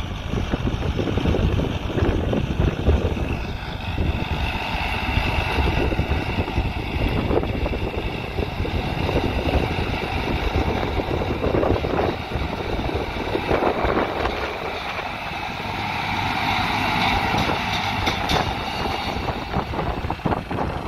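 Farm tractor's diesel engine running steadily as the tractor works across the field pulling a seed drill.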